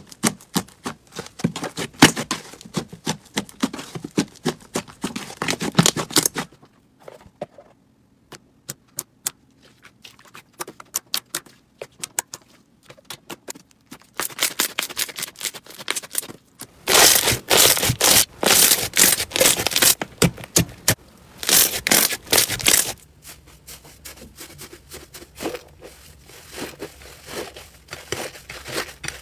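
Slime being pressed and kneaded by hand, giving runs of small sticky pops and crackling clicks. The clicks thin out to a few scattered ones for a while partway through, come back dense and loud, then ease to a softer crackle near the end.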